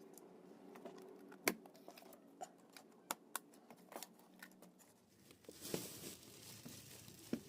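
Packaging being handled and opened: scattered sharp clicks and taps, then a short burst of crinkling, tearing rustle about five and a half seconds in.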